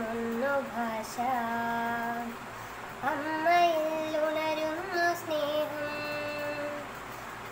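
A girl singing a prayer song solo, holding long notes with a short break partway through.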